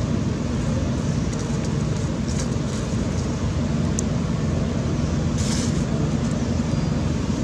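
Steady low rumbling background noise, with a short hiss about five and a half seconds in.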